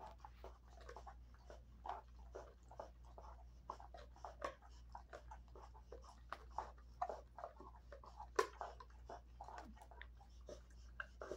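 Dog gnawing and chewing on a dried beef chew: irregular crunches and clicks, the loudest about eight seconds in.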